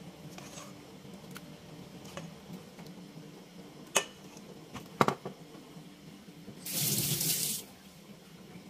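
A metal spoon knocks twice, sharply, against stainless steel bowls, among a few faint clinks. Near the end a tap runs into a stainless steel sink for about a second.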